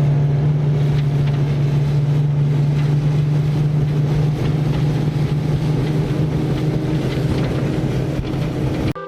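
Boat motor running steadily at speed, a loud even hum with wind noise over it. It cuts off abruptly right at the end as music comes in.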